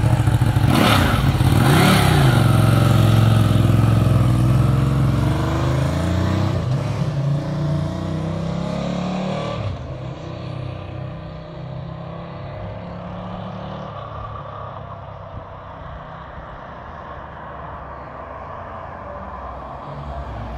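Ducati Panigale sport motorcycle engine revving sharply twice, then pulling away and accelerating hard through the gears. The engine note fades with distance as the bike rides off.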